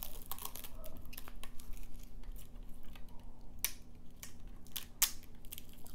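Thin protective plastic film being peeled off a plastic cable modem's casing: light crackling and scattered small clicks, with a couple of sharper clicks in the second half.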